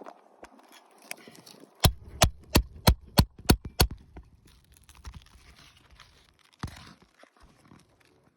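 Seven sharp metal-on-metal hammer blows in quick succession, about three a second, starting about two seconds in, typical of a hammer driving a nail puller or roof snake under a roofing nail. Faint scraping and rustling of the asphalt shingle follow.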